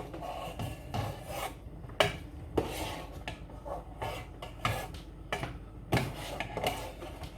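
Kitchen pots and utensils being handled: scraping and rubbing, broken by irregular sharp knocks and clinks.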